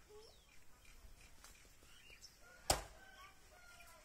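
Birds chirping faintly in the background, with a single sharp knock a little under three seconds in.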